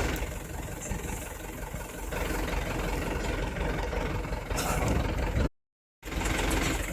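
An engine running steadily with a low rumble. The sound cuts off abruptly for about half a second near the end, then resumes.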